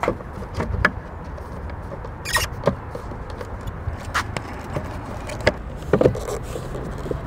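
Hard plastic wing mirror cap, wrapped in carbon-fibre vinyl, clicking and knocking against the mirror housing as it is lined up and pressed on by hand: a series of separate sharp clicks with a brief scrape, over a steady low rumble.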